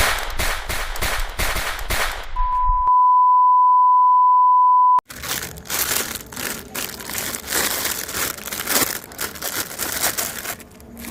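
Shredder machine crunching and cracking through hard material, a dense run of snaps and crackles. About two and a half seconds in, a steady high beep cuts in and lasts about two and a half seconds, then the crunching resumes.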